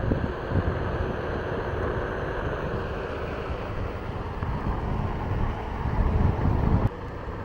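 Wind buffeting the microphone with a low rumble while riding a Onewheel GT electric board; the buffeting drops off suddenly near the end.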